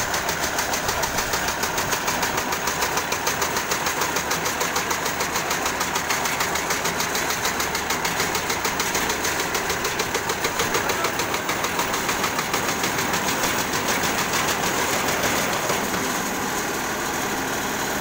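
Slipform concrete paver running while laying pavement-quality concrete: a steady machine noise with a rapid regular pulsing, about four beats a second, that smooths out near the end.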